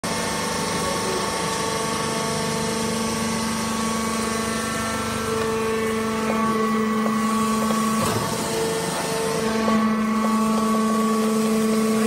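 Hydraulic wood-shavings bagging baler running: its electric motor and hydraulic pump give a steady hum of several tones, which shifts in pitch and strength a few times as the machine works.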